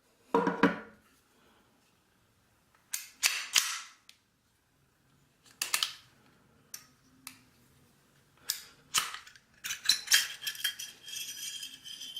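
Metal clicks and clacks of a Sig Sauer P232 pistol being field-stripped by hand, in several short bursts. Near the end comes a longer run of metal scraping and light ringing.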